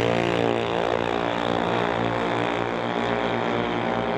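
Two junior dragsters' single-cylinder engines at full throttle on a pass down the drag strip, a steady drone that sinks a little in pitch and fades slightly as the cars pull away.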